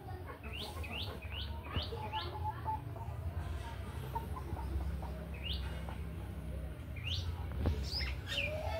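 Birds chirping: a quick run of about five short, sharp chirps near the start, then a few more scattered later, over a steady low rumble.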